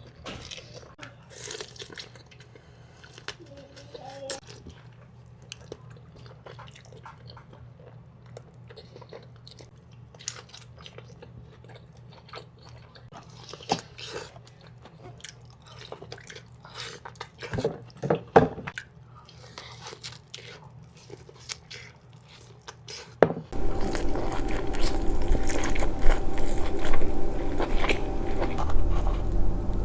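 Close-miked eating sounds from a seafood boil: scattered wet chewing, smacking and crunching clicks. About three-quarters of the way in, a steady hum with a few steady tones sets in behind the eating, and the whole becomes much louder.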